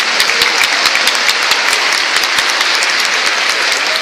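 Large crowd applauding: scattered claps thicken into dense, steady applause.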